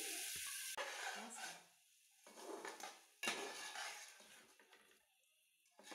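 Metal spatula stirring chicken pieces and tomato paste in a metal pot. It sounds as faint scraping and knocking against the pot in three short spells with brief gaps between.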